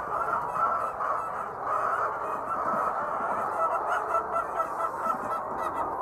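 A large flock of white laying hens calling all at once in a dense, steady chorus of overlapping squawks and clucks.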